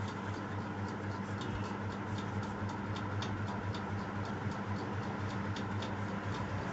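Graphite pencil sketching on paper: short, quick strokes heard as light, irregular ticks, a few a second.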